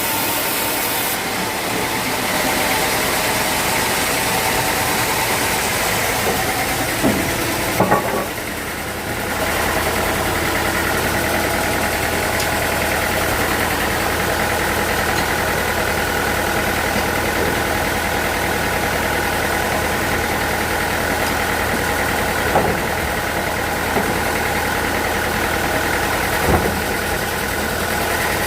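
Sawmill machinery running steadily under engine power, with a brief dip about eight seconds in and a few short knocks scattered through.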